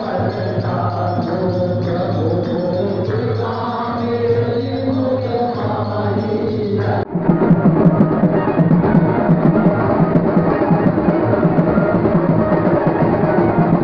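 A group singing a devotional chant to a tambourine over a steady low drone. About seven seconds in it cuts abruptly to loud, rapid drumming.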